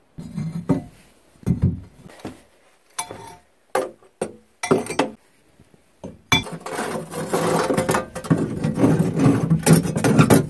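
Rusty iron stove parts being handled: a few separate knocks and clunks, then from about six seconds in a continuous loud scraping and rattling of metal as the pieces are set back in place.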